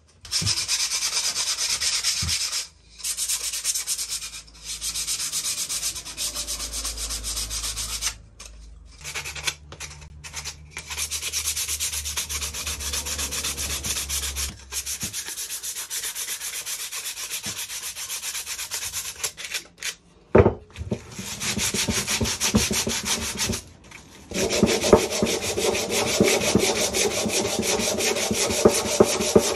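Sandpaper rubbing over painted pallet boards, rough back-and-forth strokes in spells with short pauses between them, stripping the old paint. A single sharp knock about twenty seconds in.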